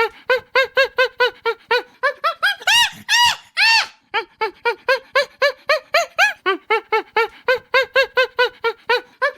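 Chimpanzee calling: a fast run of short hooting calls, about four a second, that climbs into three loud, high screams about three seconds in, then falls back into another long run of quick hoots.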